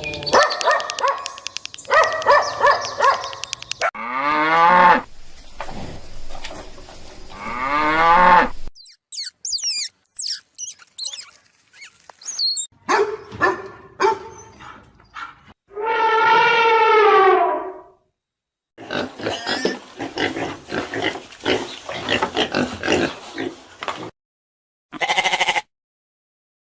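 A string of different animal calls, one clip after another with short gaps between them: pitched cries and grunts, a run of high thin chirps, one long drawn-out call, and a rapid series of short calls near the end.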